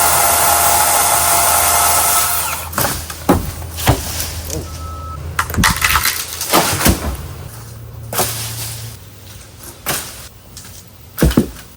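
DeWalt 20-inch battery-powered chainsaw running flat out through a Bradford pear trunk with a steady high whine for about two and a half seconds, then stopping. A string of sharp cracks and snaps of wood and branches follows as the cut tree gives way.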